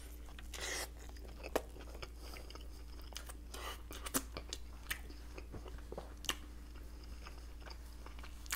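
Close-miked eating of a multi-patty Big Mac: a soft bite just under a second in, then chewing with scattered sharp wet mouth clicks and smacks.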